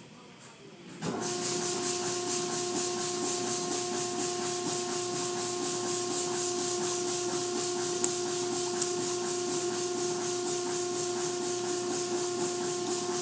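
Automatic car wash spray starting up about a second in: a loud, hissing spray that pulses several times a second over the steady hum of a pump motor, as foam is laid onto the car.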